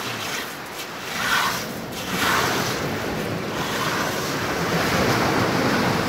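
Surf washing onto a pebble beach, swelling about a second in and again about two seconds in, with wind buffeting the microphone.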